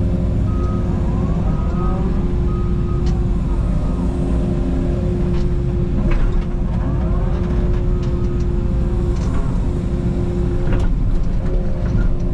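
Takeuchi TB290 mini excavator's diesel engine running under load, with a hydraulic whine that rises and falls in pitch as the arm and bucket work. Sharp knocks of the bucket striking limestone and boulders come about three, six and eleven seconds in.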